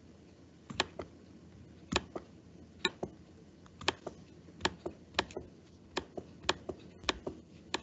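Clicking at a computer while looking for the next item: sharp, short clicks, irregular, about one or two a second and often in close pairs.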